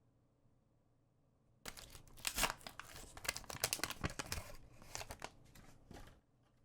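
A trading-card booster pack's wrapper being torn open and crinkled, starting about a second and a half in and stopping shortly before the end.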